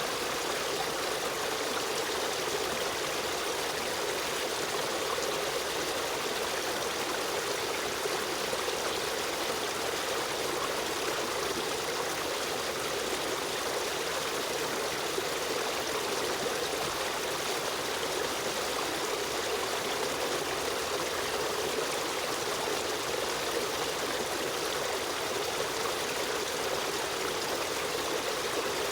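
River stream running water, flowing and trickling at a steady level.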